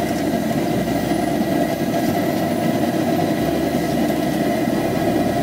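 A steady, unbroken rumbling noise with no clear rhythm.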